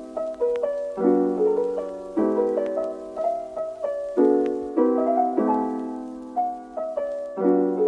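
Background music on a piano-like keyboard: chords struck about once a second, each fading, with a melody above.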